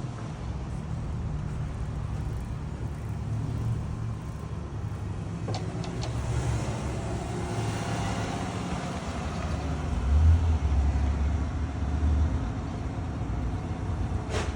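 Car engines running in street traffic: a steady low engine hum, a couple of sharp clicks about five and a half seconds in, and a louder low rumble about ten seconds in that lasts about two seconds.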